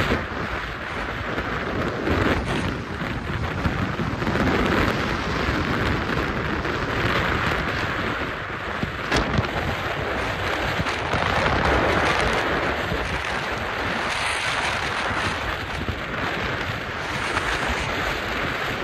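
Union Pacific freight train's cars rolling past, a steady rumble of wheels on rail, with wind buffeting the microphone.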